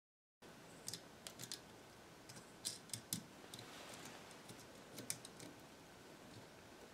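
Faint, scattered light clicks and taps as hands handle hookup wire and small metal parts at the tube sockets of an antique amplifier chassis during rewiring. The clicks begin after a moment of dead silence, a few of them a second or so apart.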